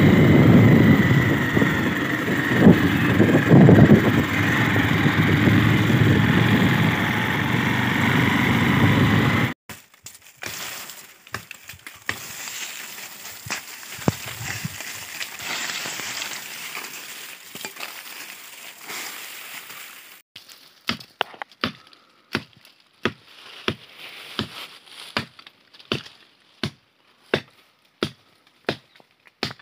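Loud electronic music that cuts off abruptly about ten seconds in, then a quieter stretch of outdoor noise with scattered knocks. From about twenty seconds in, steady blows chopping wood, about three every two seconds.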